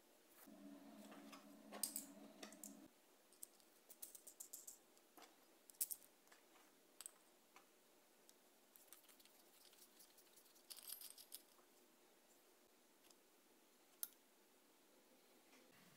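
Small metal hardware being handled: faint, scattered clicks and clinks as a steel bolt, washer and a combination square are picked up and fitted together, with a low hum for the first couple of seconds.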